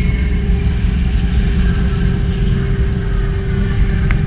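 Wind buffeting the microphone during a zip line ride, a heavy steady rumble, with the even hum of the trolley's wheels running along the steel cable. One sharp click about four seconds in.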